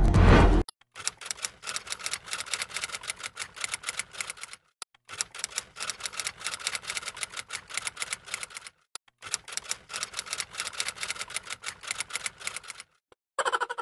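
Typewriter sound effect: rapid keystroke clicks in long runs, broken by a few short pauses.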